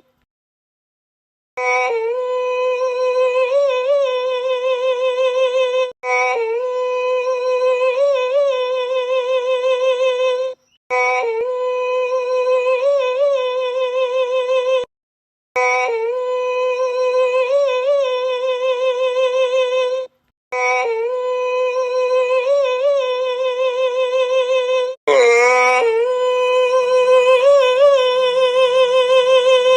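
A voice holding one long, yodel-like sung note with a slight wobble, played six times over with short silent breaks between, as a dubbed-in comic yawn sound. The last time it opens with an upward slide and is a little louder.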